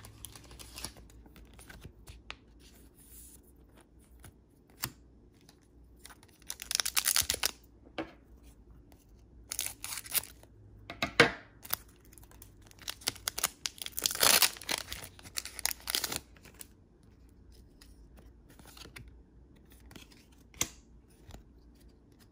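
Foil wrapper of a Pokémon booster pack being opened, in several short bursts of crinkling and tearing, the longest a little past the middle.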